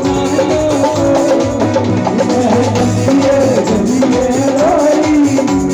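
Live Indian devotional bhajan music played loud through PA speakers: drums beaten with sticks keep a fast, driving beat under a wavering melody line.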